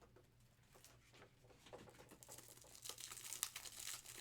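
Faint crinkling of plastic and soft clicks as trading cards and their packaging are handled, getting busier about halfway through.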